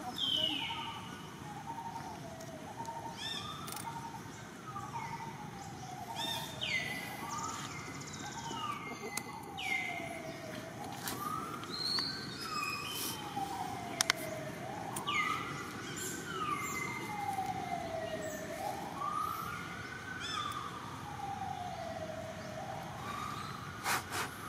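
A wailing siren, its pitch rising and falling slowly about every four seconds. Shorter high whistles, each dropping in pitch, recur every couple of seconds above it.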